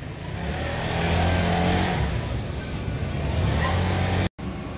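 A motor vehicle's engine running as it passes on the street, a low steady rumble that swells about a second in and then eases, with general street noise.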